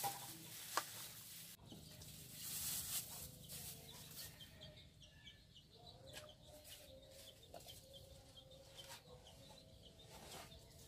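Chickens clucking faintly in the background, with a couple of short sharp clicks in the first second.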